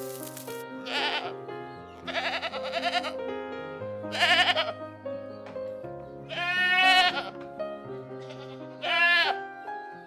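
Goats bleating five times, each call wavering in pitch; the longest, just past the middle, lasts about a second. Soft background music plays underneath.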